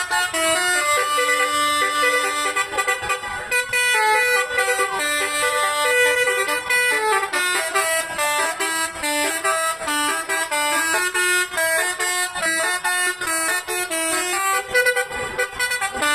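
Bus telolet horn playing a tune: a long run of short, stepped horn notes, several pitches sounding together and changing many times a second.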